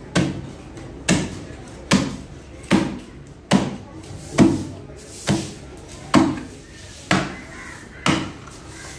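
Heavy chopper hacking through a stingray's wing and cartilage onto a wooden chopping block: about ten steady chops, a little under a second apart, each a sharp thud.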